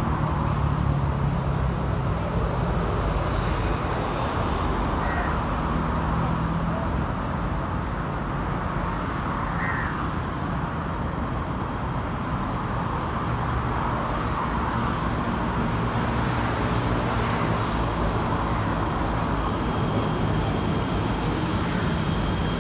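Electric passenger train approaching along a station platform, with a steady low rumble and a hiss building in the last several seconds as the cars draw alongside. A crow caws three times, about five seconds apart, in the first half.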